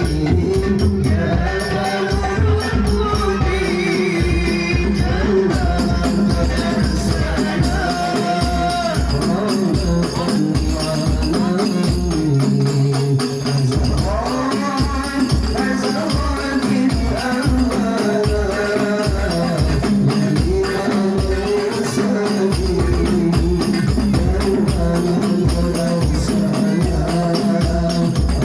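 Hadroh ensemble playing: rebana frame drums beat a steady, driving rhythm under a male voice singing a sholawat melody with wavering, ornamented melismas.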